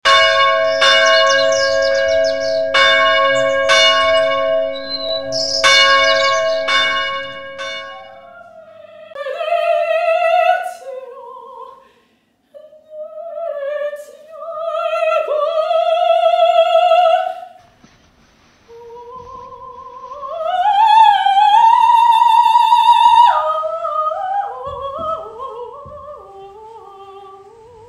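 A church bell struck about seven times over the first eight seconds, its ringing tone lingering between strokes. Then a soprano sings unaccompanied operatic phrases with a wide vibrato, three phrases in all, the last climbing high and then stepping down.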